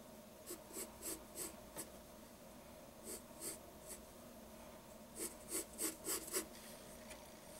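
Wooden pencil scratching on paper in short quick strokes, sketching hair strands: a run of five strokes, three more around the middle, then a faster run of five. A faint steady hum lies underneath.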